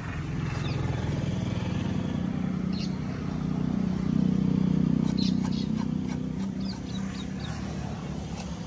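A low, steady engine hum, like a passing vehicle, swelling to its loudest about halfway through and then fading. A few short high chirps sound over it.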